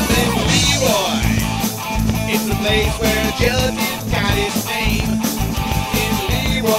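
Rock band playing: an electric guitar lead with bending notes over bass guitar and drums.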